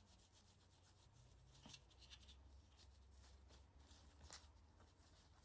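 Near silence, with faint soft rubbing and rustling as a microfiber cloth is wiped over a phone's camera lenses by gloved fingers. There are a couple of small ticks, about one and a half seconds in and again near the end.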